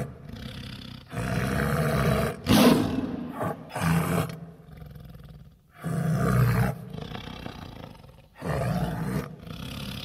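Tiger growling in several loud, harsh bouts about a second long, with quieter low rumbling growls between them.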